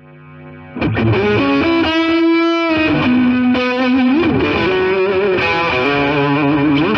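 Intro music: a distorted electric guitar lead playing long, bending notes. It swells in quietly and comes in at full loudness just under a second in.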